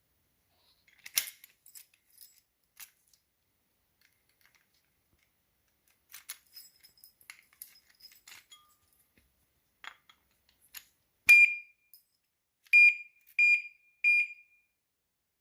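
Motorcycle alarm padlock's electronic beeper sounding four loud, short, high-pitched beeps: one about eleven seconds in, then three more in quick succession. Before the beeps, scattered light clicks and rattles of the metal lock being handled.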